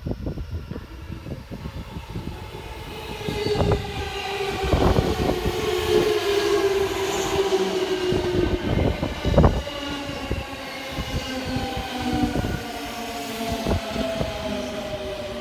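205 series 5000-subseries electric train arriving and braking: its motor whine slowly falls in pitch as it slows, with wheels knocking over rail joints.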